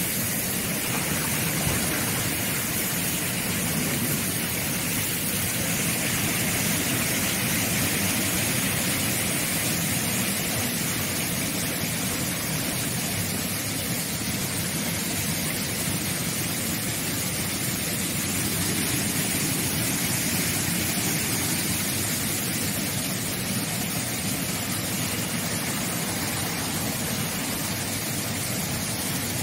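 Air-bubble vegetable washing machine running: a steady rush of churning, bubbling water and spray from its nozzles.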